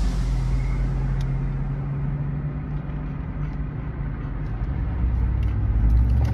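A steady low rumble of a running car, heard from inside the cabin, with a few faint ticks.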